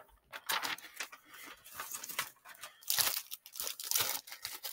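Sheets of paper being shuffled and rustled in irregular bursts while notes are searched through.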